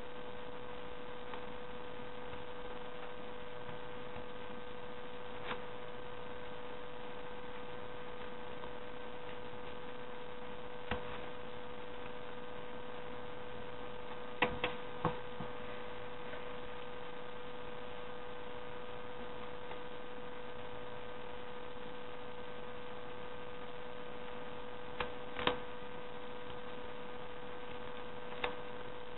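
Steady electrical hum with a high steady tone. A few short clicks of scissors snipping folded paper sound over it, including a quick cluster of three about halfway through.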